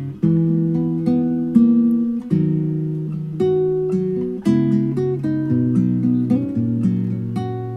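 Acoustic guitar playing alone: a slow pattern of strummed and picked chords, a new chord struck about once a second and left to ring.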